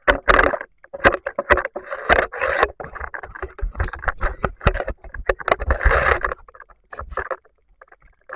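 Water splashing and sloshing around the camera, with many sharp clicks and knocks, as a speared giant freshwater prawn is lifted out of the water.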